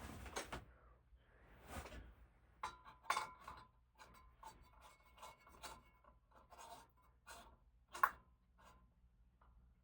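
CFL bulbs being screwed into a ceiling fan light kit's sockets: faint, irregular scraping and rubbing with scattered small clicks, and one sharper click about eight seconds in.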